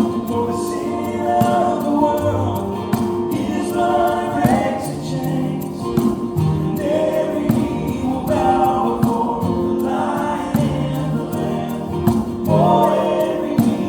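Gospel music: a choir singing over a steady accompaniment with a light regular beat.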